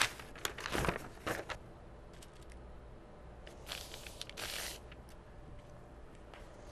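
Rustling and scraping of heavy upholstery fabric and a brown-paper pattern being handled and smoothed flat by hand, in a few short bursts around the first second and again near four seconds in.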